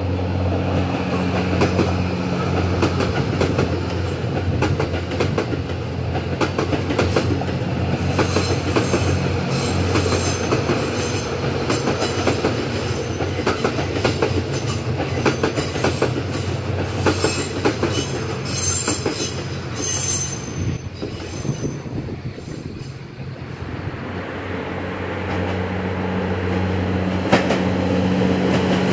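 Diesel train running by: a steady engine drone, with wheels clattering over rail joints and squealing through the middle. The sound dips a few seconds before the end, and the engine drone then builds again.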